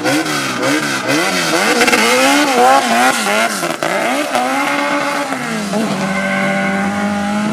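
Car engine revved hard in quick repeated rises and falls, about three a second, then held at a steady pitch for the last couple of seconds.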